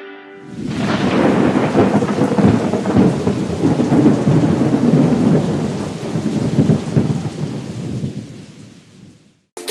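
Thunderstorm sound: thunder rumbling over heavy rain. It swells in about half a second in and fades out over the last few seconds.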